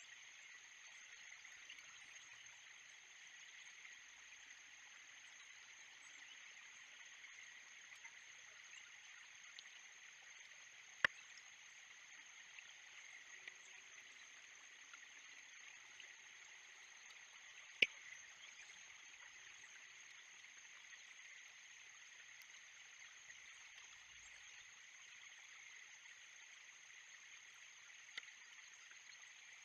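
Faint steady outdoor ambience from a nest camera's microphone: a high-pitched hiss and buzz, broken by two sharp clicks about eleven seconds in and again about seven seconds later.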